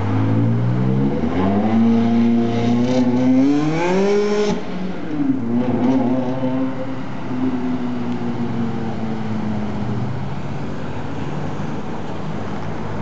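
Ferrari 360 Spider's 3.6-litre V8 with an aftermarket sport exhaust accelerating away: the engine note rises for about four seconds, drops suddenly at an upshift, climbs again briefly, then settles and fades into traffic noise.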